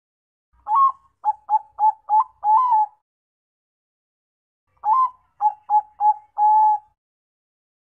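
Bangkok-strain zebra dove (perkutut) singing two cooing phrases, a couple of seconds apart. Each phrase opens with one note, runs into a quick series of short, clipped coos and ends on a longer held coo.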